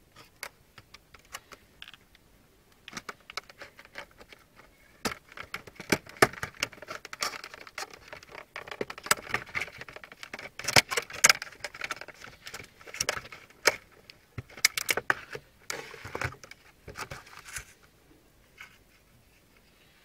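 Clear plastic blister pack crinkling and crackling as it is handled and pried open by hand: an irregular run of clicks and crackles, sparse at first, densest in the middle, dying away near the end.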